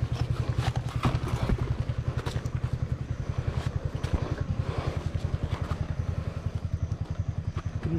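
Royal Enfield Himalayan's single-cylinder engine idling with an even, rapid low thump, scattered light clicks and knocks over it.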